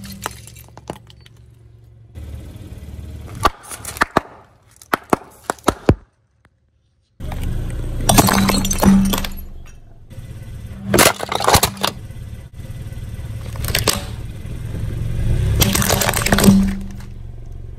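Car tyre rolling over and crushing hard plastic objects: clusters of sharp cracks and snaps, a second of dead silence where the audio cuts, then several louder bouts of crunching and breaking.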